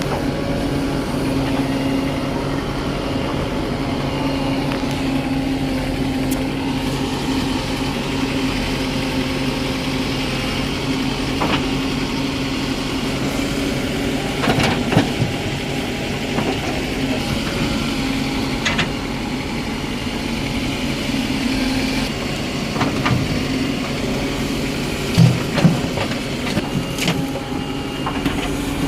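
Diesel engine running steadily at a low, even speed, with a few short knocks about halfway through and near the end.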